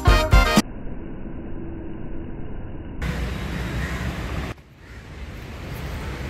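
Background music cuts off about half a second in. Then steady outdoor city ambience follows: a low rumble of distant road traffic, which briefly drops away about four and a half seconds in.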